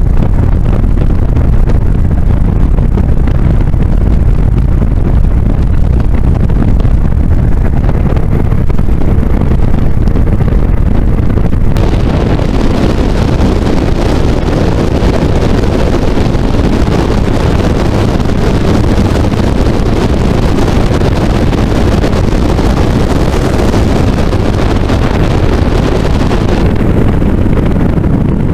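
Yamaha Exciter jet boat running at speed: a loud, steady rush of engine, spray and wind buffeting the microphone. About twelve seconds in the sound turns brighter and hissier, easing back near the end.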